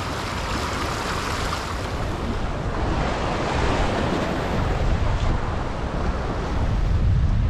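Small ocean waves washing and splashing against jetty rocks, with wind buffeting the microphone as a steady low rumble.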